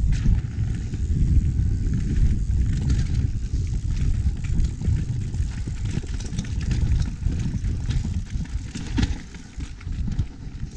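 Wind rumbling over a chest-mounted action camera's microphone as a mountain bike rides fast down a dirt trail, with tyres crunching and the bike rattling and knocking over roots and bumps. A sharper knock comes about nine seconds in.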